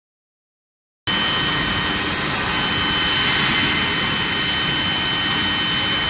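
Stainless steel bar induction hardening and tempering line running: a loud, steady noise with several steady high-pitched whines through it. It starts abruptly about a second in.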